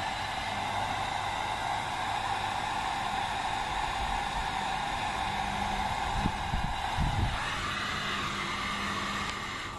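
Heat gun blowing steadily while shrinking heat-shrink tubing over a crimped cable lug. Its pitch shifts a little higher about seven seconds in, with a few low bumps just before.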